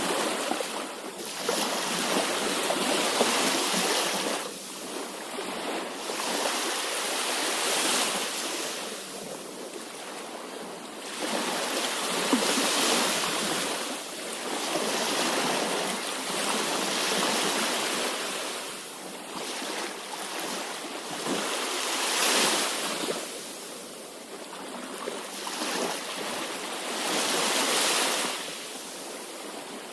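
Sea waves breaking and washing over the shore, the surge swelling and falling away every few seconds.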